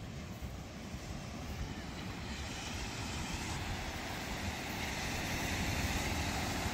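Wind buffeting the microphone over the steady wash of Baltic Sea surf; the hiss of the surf fills in about two seconds in and grows gradually louder.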